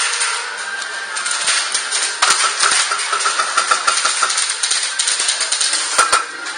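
Airsoft guns firing: sharp rapid clacking shots. A fast run of shots starts about two seconds in and lasts about two seconds, with scattered single shots and more loud cracks near the end.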